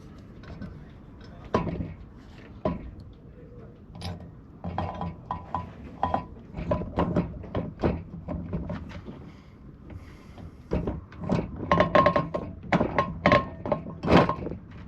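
Metal parts and tools clinking and knocking as a cleaned anchor windlass is reassembled, with irregular sharp clinks, some ringing briefly, coming thicker in the last few seconds.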